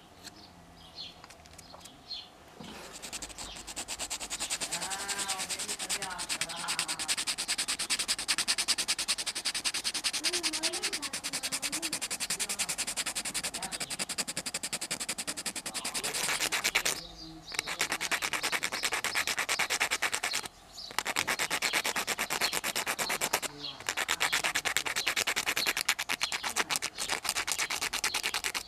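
Coarse P80 sandpaper rubbed rapidly back and forth by hand over a small carved wooden lure body: a dry, fast rasping that starts about three seconds in and breaks off briefly three times in the second half.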